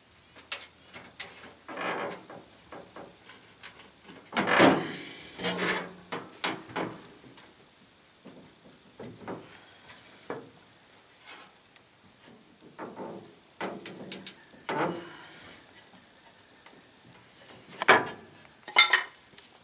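Wooden blocks and a wooden stick knocking and scraping against the 1966 Chevy Biscayne's bent grille as they are wedged in and levered to straighten it. Irregular knocks and rubs, the loudest a scrape about five seconds in, with two sharp knocks near the end.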